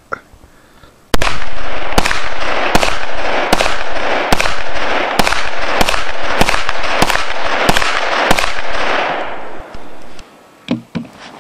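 A string of about a dozen gunshots fired in quick succession, roughly one every half second to second, each followed by an echoing ring. The shots stop a couple of seconds before the end.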